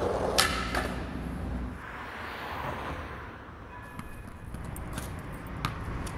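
Skateboard wheels rolling on concrete with a low rumble and a sharp clack of the board about half a second in. The rumble then gives way to a swelling hiss with scattered single knocks.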